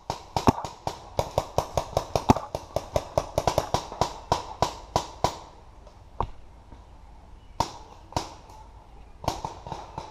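Paintball marker firing a rapid string of shots, about four a second, for roughly five seconds, then a few single shots spaced a second or so apart.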